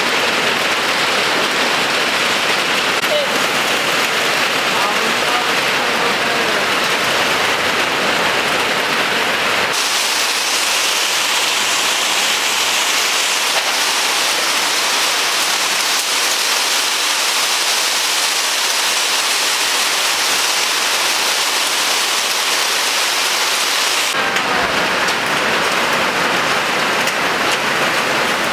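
Heavy rain pouring off tarpaulin awnings and splashing onto wet pavement and a parked scooter, a dense, steady hiss of water. The hiss abruptly turns thinner and brighter about ten seconds in, and changes back near the end.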